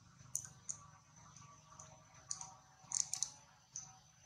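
A baby long-tailed macaque feeding in dry leaf litter: a string of sharp, irregular little crackles and clicks as it picks through the leaves and chews, about nine in four seconds, with a quick cluster around three seconds in.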